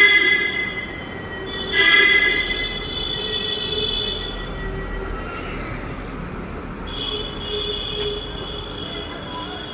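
Train wheels squealing on the rails: a high, ringing squeal in spells, loudest at the start and again about two seconds in, dying away by the middle and returning more faintly near the end.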